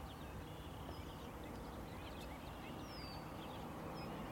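Small birds chirping in short, scattered calls over a steady low rumble of outdoor background noise.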